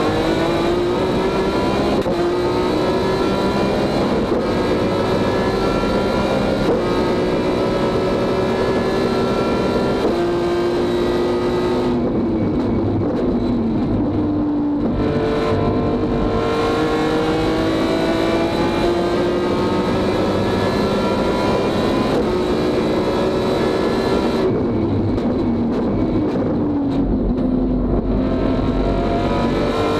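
BMW S54 3.2-litre straight-six in an E36 race car, heard from inside the car and running under racing load. The engine pitch climbs steadily for long stretches, falls as it lifts off for corners about twelve seconds in and again about twenty-five seconds in, then rises once more as it pulls away.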